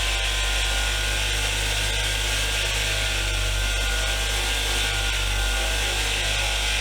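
Powered wire wheel running steadily, its wire bristles scrubbing rust and grime off the parts of a pipe wrench, with the motor's steady hum underneath.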